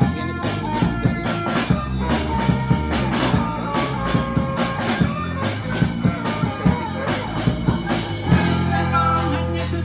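Rock music with drums and guitar, and some singing.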